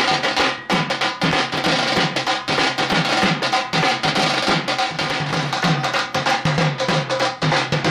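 Dhol drumming with a fast, steady beat of deep thuds and sharp slaps, carrying festive music.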